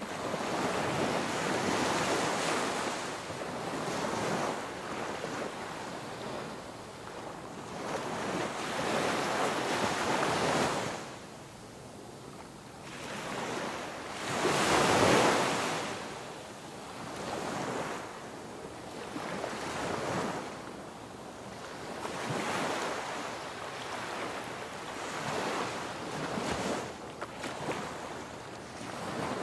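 Ocean waves washing onto a shore, swelling and falling away every few seconds, the biggest wave about halfway through.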